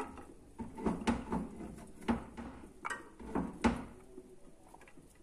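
Chopped garlic being dropped by hand into a stainless steel pot of raw mackerel. It makes a handful of light clicks and knocks, spaced irregularly half a second to a second apart.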